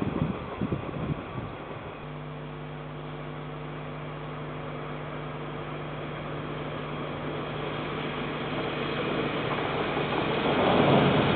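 A diesel locomotive approaching: after a second or so of rushing noise, its engine's steady hum grows gradually louder, and about ten seconds in the louder rumble of the passing train takes over.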